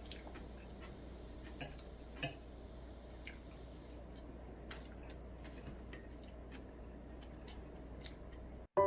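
Scattered light clinks of utensils against a dish, about five sharp ticks spread over several seconds, over a steady low hum.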